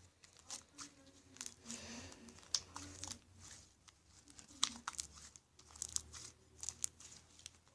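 A large mass of homemade slime being stirred and mixed, giving faint, irregular sticky clicks and crackles.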